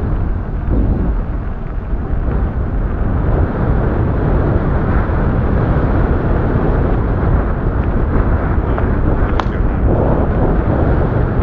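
Strong wind buffeting the microphone during an electric bike ride, a loud steady low rumble. A single sharp click comes about nine and a half seconds in.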